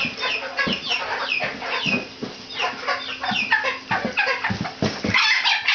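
Young chickens peeping and clucking, a dense run of short high falling calls several a second, with a few low thumps.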